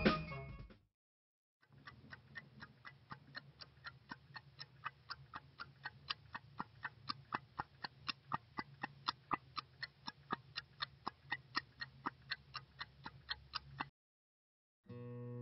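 Clock ticking evenly and quickly, several ticks a second, over a low steady hum. The ticks grow louder over the first several seconds and stop suddenly near the end.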